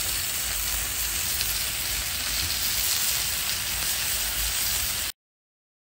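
Cod fillets frying in olive oil on a Blackstone flat-top griddle, a steady sizzle that cuts off suddenly about five seconds in.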